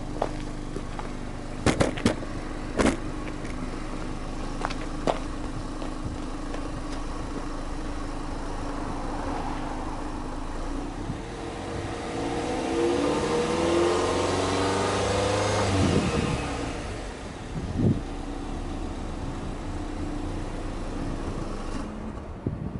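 Subaru Legacy Touring Wagon 2.0GT's turbocharged flat-four exhaust at the tailpipes, idling with a few clicks near the start. About ten seconds in it is revved up slowly in neutral, held high, then dropped back near sixteen seconds. A short blip follows, and it settles back to idle.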